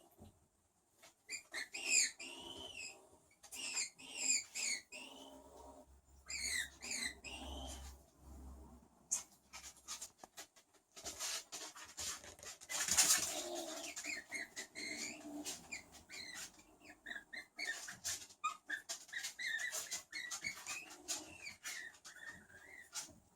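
Skunk calling in repeated short, high-pitched arching squeaks, with scattered clicks and a noisy burst about halfway through.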